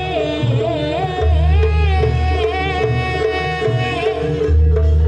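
Live Banyuwangi barong gamelan music: a wavering melody line slides up and down over a steady drum beat, with deep low strokes underneath.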